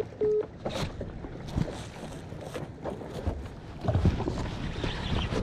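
Wind on the microphone and small waves slapping a kayak hull, with irregular knocks and rustles of handling while a hooked fish is being fought. A short beep sounds right at the start.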